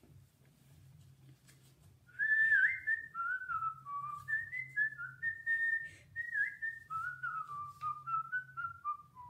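A person whistling a tune, starting about two seconds in: a string of short notes wandering up and down, ending on a longer held note.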